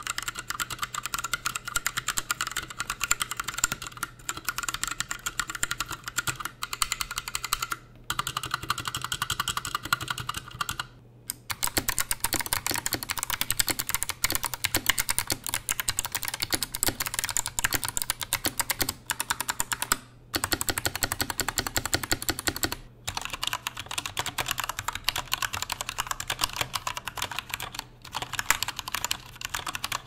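Fast, continuous typing on mechanical keyboards in a switch sound test: first a Geek GK68 with Gateron Brown tactile switches in an aluminum case with a metal plate, then, after a short break about eleven seconds in, an Anne Pro 2 with Kailh Box White clicky switches, with a couple more brief pauses later on.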